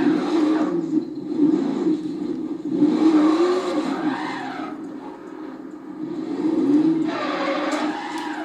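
A vehicle engine revving repeatedly, its pitch rising and falling in swells of a second or two.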